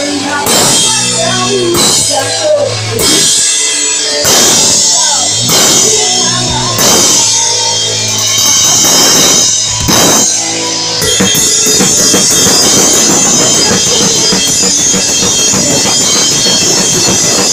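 Pop-punk band playing live and loud through a stage PA, with the acoustic drum kit and cymbals up close. For about the first eleven seconds drums and guitars hit a string of stop-start accents with short breaks between held chords, then break into continuous full-band playing.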